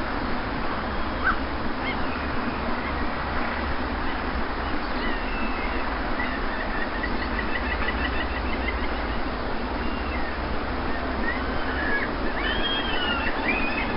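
Steady wash of sea surf on a beach, with small birds chirping over it: a fast trill of repeated notes from about five seconds in and short rising and falling calls near the end.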